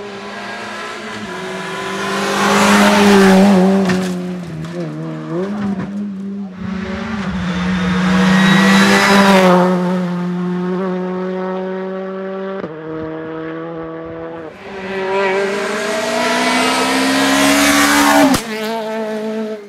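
Rally car engine at hard throttle, rising and falling in three loud swells as it accelerates out of corners and shifts gear, then cutting off suddenly near the end.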